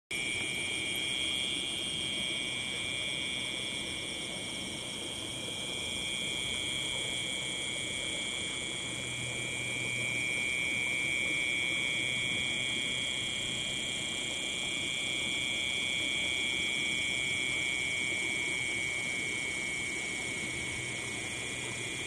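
A chorus of night insects trilling steadily and high-pitched in several overlapping pitches, with a faint low hum underneath.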